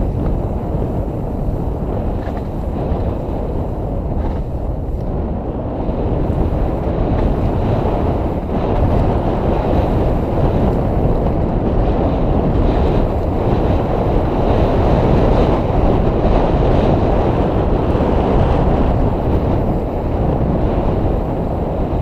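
Wind buffeting the camera's microphone during a mountain-bike descent, a steady low rush mixed with tyre and trail rumble that grows louder through the middle and eases a little near the end.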